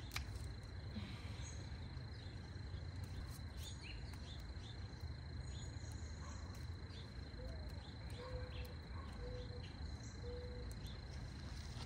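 A steady, high-pitched insect trill, like a cricket's, runs over a low background rumble. Scattered light clicks come through it, and in the second half there is a series of four short, low, evenly spaced notes.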